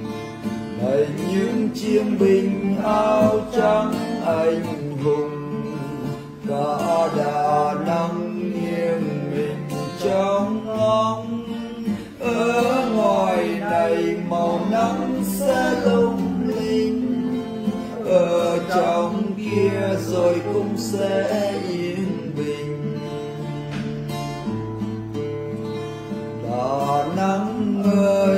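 A man singing in Vietnamese while playing a strummed acoustic guitar.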